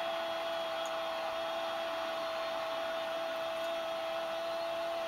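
A football commentator's long held "gooool" goal cry, sustained on one steady pitch and starting to fall away at the very end, over steady crowd noise, heard through a TV speaker.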